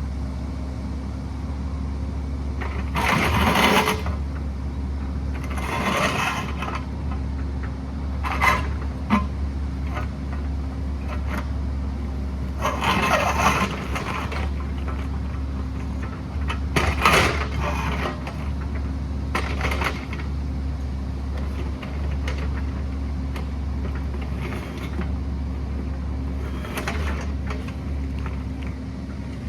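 Excavator engine running steadily, with loud scraping and knocking every few seconds as the bucket works against rock.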